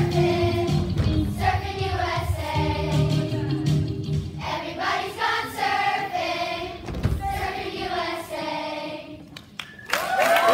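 Children's choir singing a pop song over a backing track with a pulsing bass line. A loud sustained note comes in near the end.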